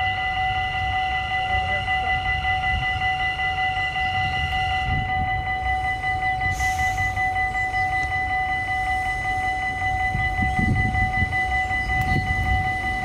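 Dutch level-crossing warning bell ringing with rapid, even strokes, over the low rumble of an NS Sprinter New Generation electric train approaching over a steel truss bridge. The rumble grows louder near the end.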